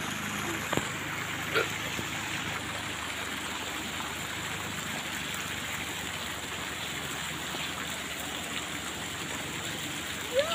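Steady splashing rush of fountain jets and running water in ornamental pool channels, with a brief tap about a second and a half in.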